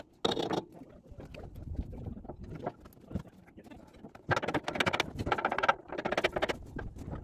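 Steel pry bar and hand tools working at a seized steel boiler-mount bracket: metal scraping, rattling and knocking in short bursts. The longest and loudest run comes about four to six and a half seconds in.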